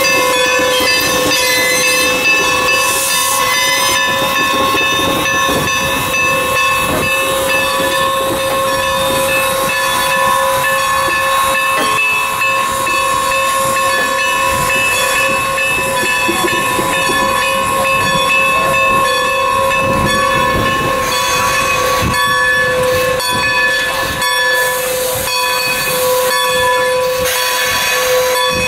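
Norfolk and Western M-class 4-8-0 steam locomotive No. 475 hissing steam steadily as it rolls slowly past, with several steady ringing tones held over the hiss.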